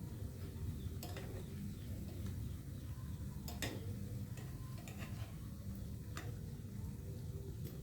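Scattered sharp clicks and light knocks of a kitchen utensil against a pan, about half a dozen, over a steady low hum.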